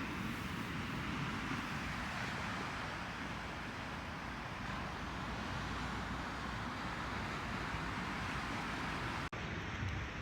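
Steady rushing vehicle noise, like road traffic, with a brief cut about nine seconds in.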